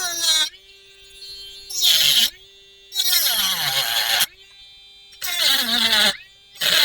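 Rotary tool with a cutting bit trimming the edge of a 3D-printed plastic quick release plate in short repeated passes, about five: each pass is a loud grinding whine whose pitch sinks as the bit loads into the cut, with a steady lower hum between passes as the tool spins free.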